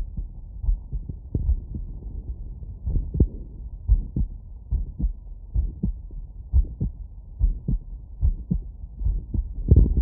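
Human heartbeat heard through a stethoscope, a regular run of dull low thuds, recorded lying down after exertion.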